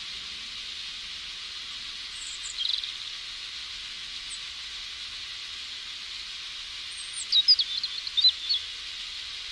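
Steady hiss of rain, with a bird chirping briefly about two seconds in and a louder burst of quick chirps near the end.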